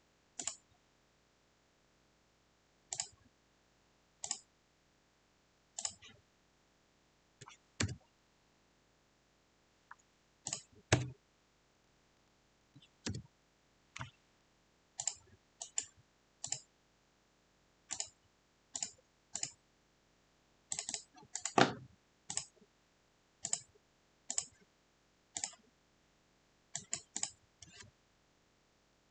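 Scattered clicks of a computer mouse and keyboard being worked, roughly one a second and often in quick pairs, with a louder, heavier knock about three-quarters of the way through.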